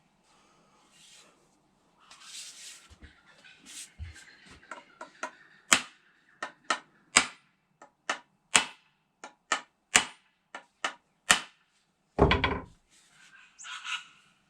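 A run of about a dozen sharp knocks, roughly two a second, then one heavier, longer thump near the end. This is a new spotted gum handle being tapped home into the head of a block-splitting maul.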